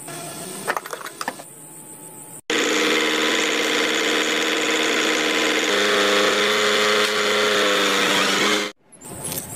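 A small motor-driven machine running steadily with a loud mechanical whir, its pitch shifting down slightly partway through; it starts and stops abruptly. Before it, a few faint clinks.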